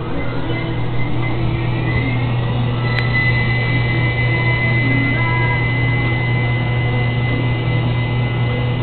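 Wascomat front-loading laundromat washers starting their first spin: a steady low motor hum under a whine that rises as the drum picks up speed, then holds steady after a sharp click about three seconds in.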